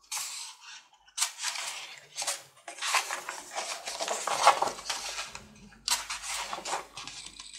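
Paper pages of a plastic model kit's instruction booklet being turned and pressed flat by hand: a run of crisp, irregular rustles, the loudest about four and a half seconds in.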